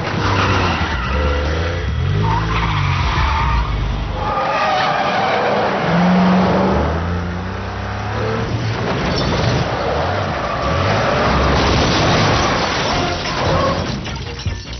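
Cars racing with engines revving and tyres squealing again and again as they skid through turns.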